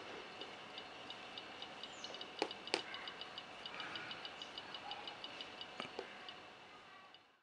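Faint, short high-pitched ticks at an uneven pace, bunching into several a second in the middle, from a reed switch test circuit being switched on and off by a magnet. Two sharper clicks come about two and a half seconds in, and another near the end.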